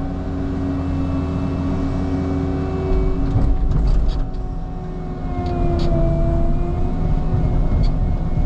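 Caterpillar 306 mini excavator's diesel engine running under load with a steady hydraulic whine as the machine pushes on a large tree; the pitch sags and recovers about five to six seconds in as the load comes on. A few sharp clicks about three to four seconds in.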